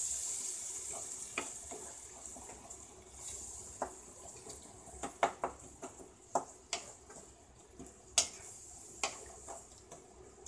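Ginger-garlic-green-chilli paste sizzling in oil in a pan of onion-tomato masala, the sizzle loudest at first and fading over the first couple of seconds. A wooden spatula stirs and scrapes the mixture, knocking against the pan again and again, most often in the second half.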